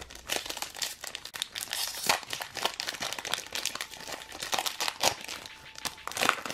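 Foil wrapper of an Upper Deck MVP hockey card pack crinkling and tearing as it is opened by hand: a dense, irregular run of sharp crackles.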